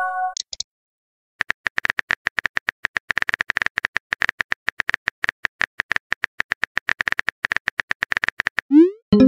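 Rapid keyboard tap clicks from a phone texting app as a message is typed, after the tail of a short incoming-message chime at the start. Near the end a rising swoosh and a chime mark the message being sent.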